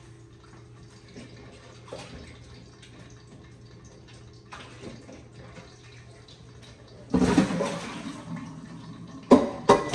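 A loud rush of running water starts suddenly about seven seconds in and fades over a second or so, with a few sharp knocks near the end. Before it there is only a faint steady background with light ticks, fitting oil heating in a cast-iron skillet.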